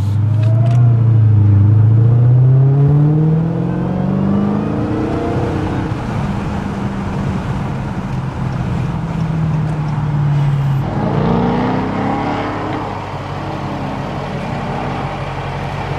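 Supercharged V8 of a Dodge Hellcat accelerating, heard from inside the cabin. The engine note rises in pitch over the first few seconds, settles into a steady drone, then climbs again about eleven seconds in.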